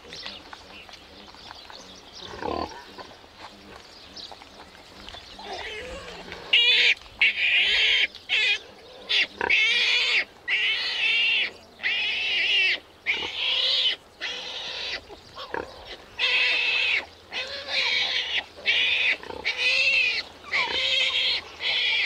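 Newborn piglets squealing: from about six seconds in, a rapid series of loud, shrill cries with short gaps between them. The sow's soft grunting sits low beneath them, the first exchanges between mother and piglets while they claim places at her teats.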